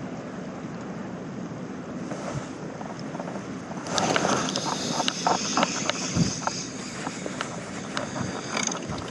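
Wind on the microphone over sea water, with a louder run of sharp clicks and rattling starting about four seconds in.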